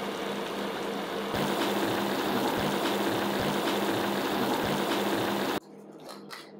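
Nikujaga (beef and potato stew) simmering hard in a stainless steel saucepan on an induction hob: a loud steady hiss of bubbling with a few low soft knocks, over a steady hum. Near the end the sound cuts off suddenly, leaving a few faint taps of a spoon in the pan.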